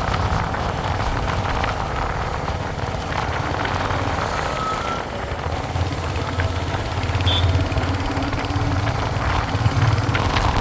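Royal Enfield Hunter 350's single-cylinder engine and exhaust running steadily with a low thump, a little louder in the last few seconds.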